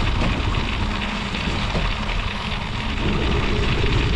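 Studded bicycle tyre rolling over lake ice, a steady gritty hiss of the studs on the ice, with wind rumbling on the microphone.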